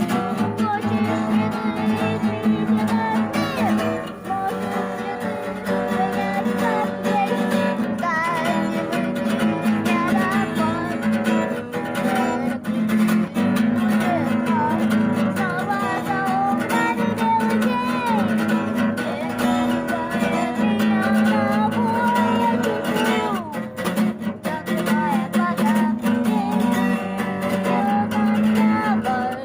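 Acoustic guitar strummed steadily, with a wavering melody line carried above it.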